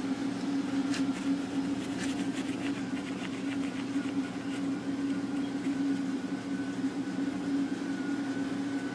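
A steady low machine hum runs throughout, with faint scratchy strokes of steel wool being rubbed over a chrome wheel.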